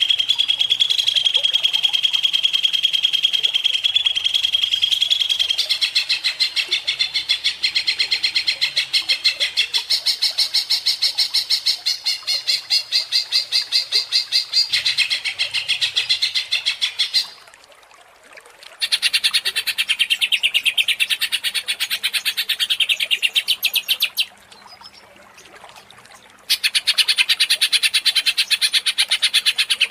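Greater green leafbird (cucak ijo) singing a long, rapid stream of repeated high notes, breaking off briefly twice in the second half.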